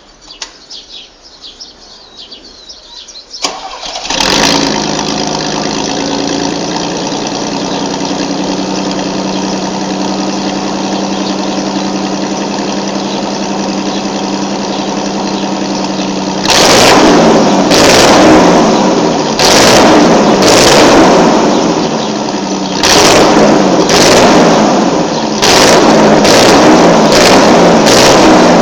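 Chevrolet S-10's 2.8-litre V6 heard through its exhaust: it starts about four seconds in and idles steadily, then from about sixteen seconds it is revved in a series of short blips, four or five in all.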